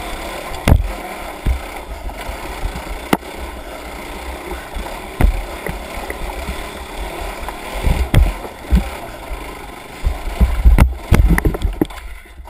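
Steady rush of creek water with irregular low rumbling and several sharp knocks, the loudest cluster of knocks about eleven seconds in.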